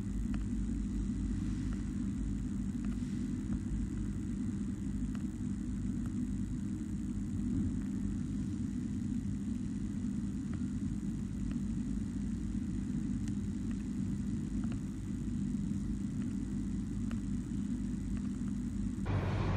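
Steady low rumble with a constant low hum, changing abruptly to a different rumble near the end.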